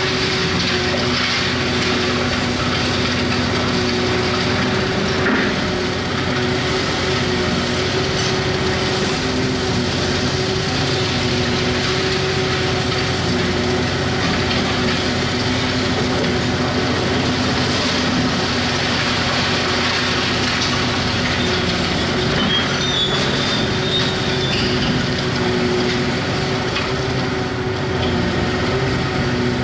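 Large Hitachi 670 LCH demolition excavator's diesel engine running steadily under work, with a constant noisy wash around its hum and a lower tone that comes and goes.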